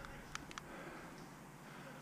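Quiet background with a few faint sharp clicks about a third to half a second in.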